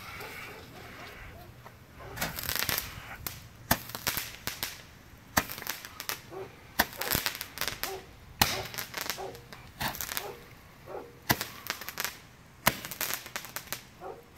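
Black Cat 10-shot crackling candle firing. A fuse hisses for about two seconds, then shots follow about every second and a half, each a sharp pop followed by a burst of crackling.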